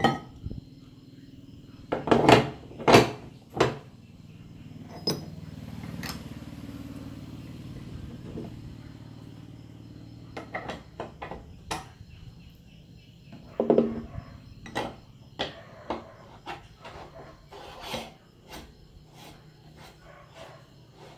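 Metal parts of a hand-crank meat grinder clinking and knocking against each other and the wooden table as the cutting plate, blade and screw ring are handled and fitted onto the barrel. A cluster of sharp knocks comes about two to four seconds in, and another near fourteen seconds.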